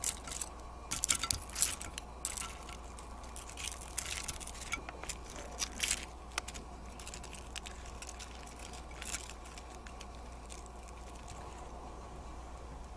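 Chopsticks handling and pulling apart pieces of crisp-fried karaage chicken: the crust crackles in short bursts with small clicks, busiest in the first six seconds and then only faint, over a steady low hum.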